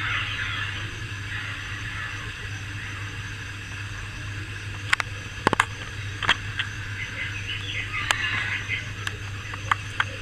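Steady low electrical hum with faint irregular chirping in the background, broken by a handful of sharp clicks about halfway through and again near the end.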